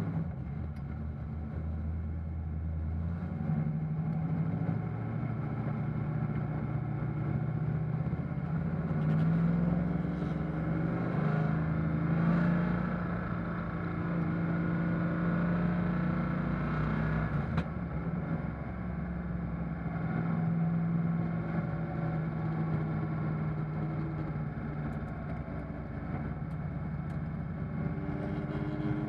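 Fuel-injected 283 V8 of a 1957 Corvette race car heard from inside the open cockpit, running hard on track. The revs repeatedly climb and drop, with a break in the note a little past halfway.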